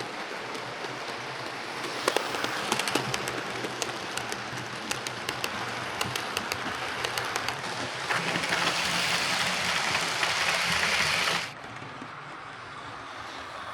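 Hornby A4 'Mallard' OO gauge model locomotive running on track after its drive gear was refitted: a steady mechanical rattle of the motor and wheels with frequent sharp clicks. It grows louder about eight seconds in and drops off suddenly a few seconds later.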